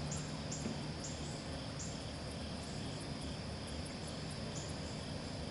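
Insects calling: short, high-pitched chirps repeating roughly once or twice a second over a steady background hiss.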